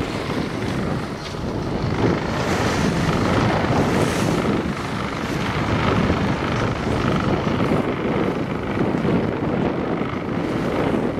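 Wind buffeting the microphone on the deck of a sailboat under way, a steady low rush with the sound of choppy water washing past the hull.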